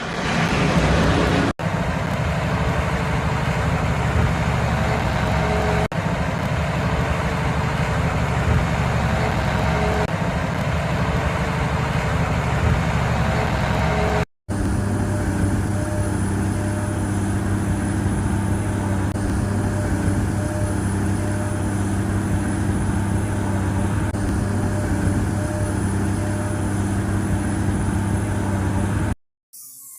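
John Deere 800C large excavator's diesel engine running steadily, with a faint high whine over it, in a few takes separated by short cut-outs.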